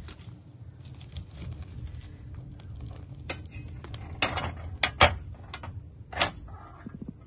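Kitchenware being handled during cooking: a few sharp clinks and knocks of dishes and utensils, the loudest about five seconds in, over a steady low rumble.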